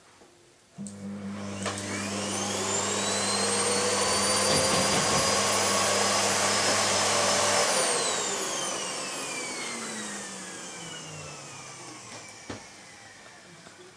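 Vacuum cleaner switched on about a second in, its motor whine rising to full speed and running steadily, then switched off at about eight seconds, the whine falling slowly as the motor spins down. A single sharp click near the end.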